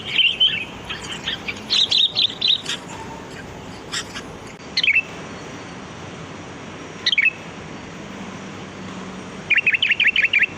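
Sooty-headed bulbul calling: quick runs of bright chirps at the start and about two seconds in, a couple of single sliding notes in the middle, and another quick run of chirps near the end.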